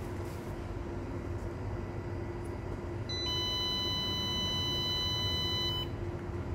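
Hybrid solar inverter's buzzer giving one long, steady beep of about three seconds near the end of its power-up countdown, cutting off sharply, over a steady low hum.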